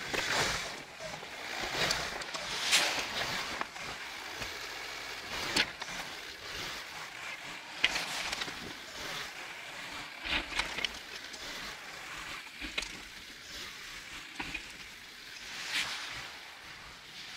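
Dodge Ram diesel pickup with a Boss snowplow working snow, back dragging. The engine runs under rising and falling swells of noise, with a few sharp clicks.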